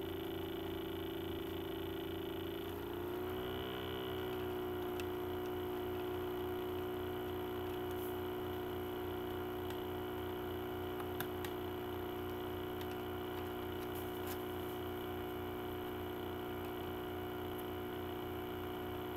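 A steady background hum that shifts slightly in pitch about three seconds in, with a few faint clicks of a plastic CD case being worked at by hand.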